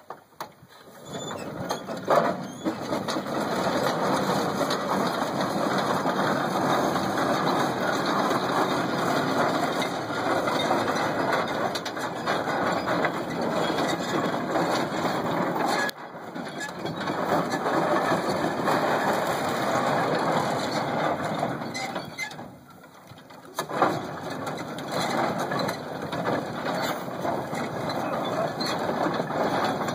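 Case steam traction engine on crawler tracks running with a dense, steady mechanical clatter of its gearing and running gear. The sound breaks off briefly about halfway through and dips again about two-thirds through.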